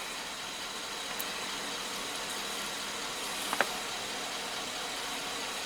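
Steady mechanical hum with one short click about three and a half seconds in.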